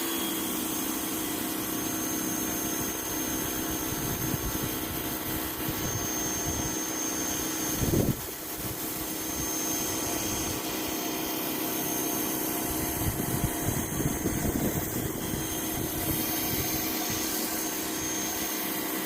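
Pressure washer running steadily through an extension wand, its water spray hissing with a constant motor hum and a thin high whistle over it. A brief knock about eight seconds in.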